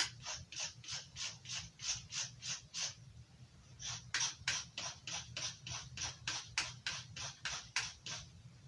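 Knife blade drawn in quick repeated strokes across the lighter grit of an abrasive knife sharpener, a scrape about three to four times a second. The strokes stop for about a second partway through, then another run of about fifteen strokes follows.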